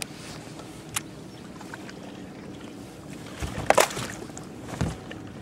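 Handling sounds aboard a bass fishing boat over a steady low hum: a couple of sharp clicks near the start, then a louder clatter about three and a half to four seconds in and another knock near five seconds.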